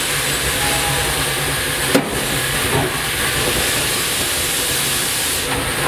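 Steam locomotive's cab full of a steady hiss of steam over a low hum, with one sharp knock about two seconds in and a lighter one just after.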